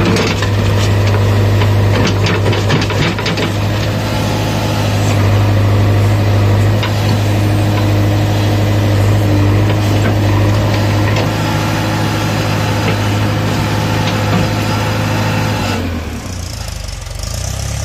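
JCB 3DX backhoe loader's diesel engine running steadily under working load while soil is tipped from its bucket, with a crackling spatter of falling earth and clods in the first few seconds. About sixteen seconds in, the engine sound drops and changes.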